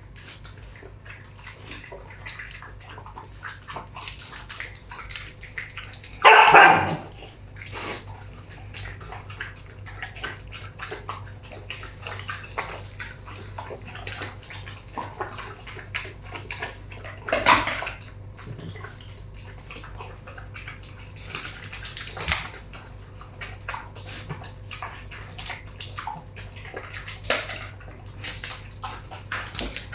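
A dog barking now and then, loudest once about six seconds in and a few more times later, over a steady patter of small clicks and rustles.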